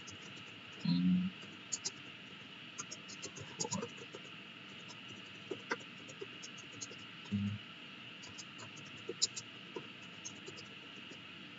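Computer keyboard being typed on: irregular light keystroke clicks scattered through, over a steady background hiss, with two low dull thumps, about a second in and again past seven seconds.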